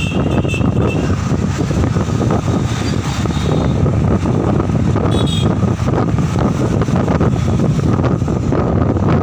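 Wind buffeting the microphone over the steady rumble of a moving vehicle and road traffic, heard from an open vehicle window. A vehicle horn sounds right at the start, and a short horn toot comes about five seconds in.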